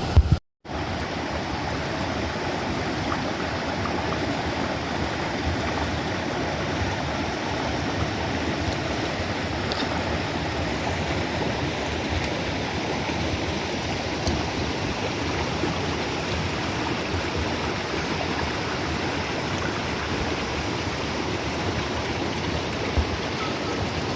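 Rushing mountain stream: a steady, even rush of water with no change in level.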